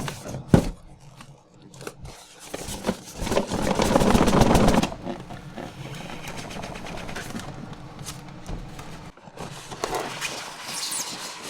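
Hands working a boxed diecast model out of its cardboard box and packaging: rustling, scraping and handling noise with a few sharp clicks, loudest for about two seconds around four seconds in.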